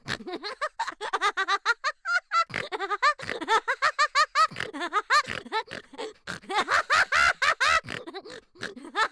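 Fast, high-pitched squeaky chattering, short syllables rising and falling in pitch several times a second, like a voice sped up to chipmunk pitch.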